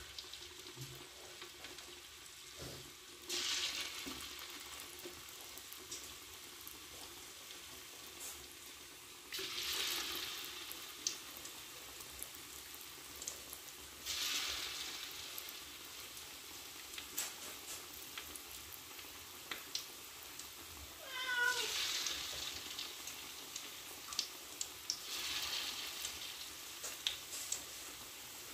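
Chicken kabab pieces deep-frying in hot oil: a steady sizzling hiss that swells sharply about five times as fresh pieces go into the oil, then settles again, with scattered spitting pops in the second half. About three-quarters through, a short wavering call falls quickly in pitch.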